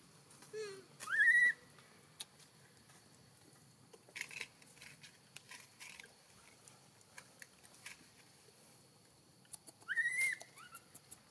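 Newborn long-tailed macaque crying: two high-pitched calls that rise and then hold, one about a second in and one near the end. Scattered soft clicks come between them.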